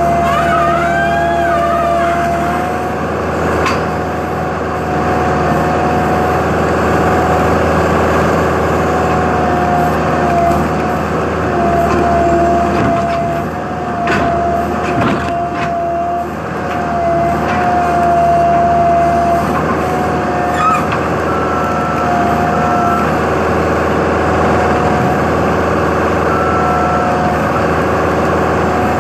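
Heavy equipment's diesel engine running steadily, with a steady high whine that dips briefly now and then and a few short knocks around the middle.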